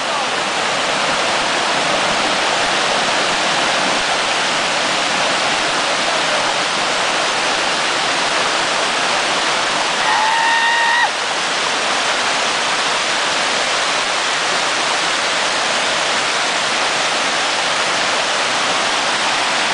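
Small waterfall on a creek, water rushing steadily over rock ledges. About ten seconds in, a brief high-pitched tone sounds for about a second over the water.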